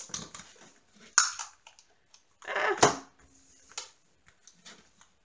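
Clear plastic film over a diamond-painting canvas crinkling and rustling under the hands as a tape measure is laid across it, with a couple of sharp taps about a second and about three seconds in.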